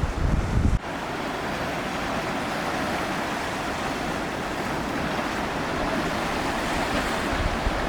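Sea surf washing on a beach in a steady hiss. Wind buffets the microphone with a low rumble that cuts off abruptly about a second in and comes back near the end.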